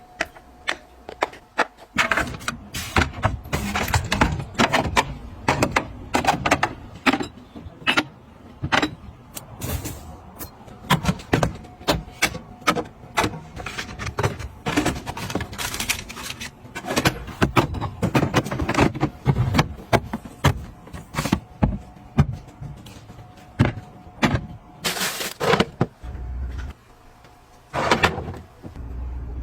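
Food containers and packages being handled while a refrigerator is organized: a long run of short clicks, knocks and rustles as items are picked up and set down, with a few heavier thuds near the end.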